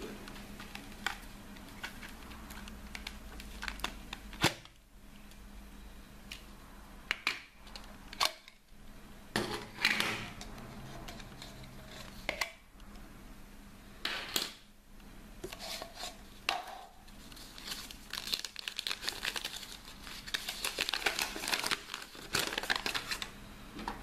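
Plastic packaging being handled and pulled apart while a mini RC car is unboxed from its drink-can-shaped case: crinkling and tearing of plastic, with scattered sharp clicks and knocks of the case parts. A long stretch of dense crinkling comes near the end.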